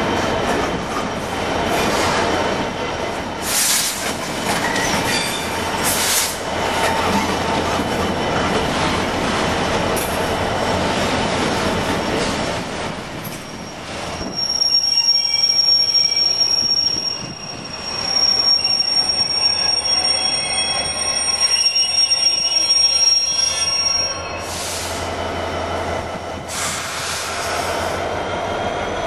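Container freight train hauled by a Class 66 diesel locomotive rolling past, its wagons rumbling with occasional knocks. From about halfway through, a high steady wheel squeal runs for about ten seconds, then fades back into the rumble.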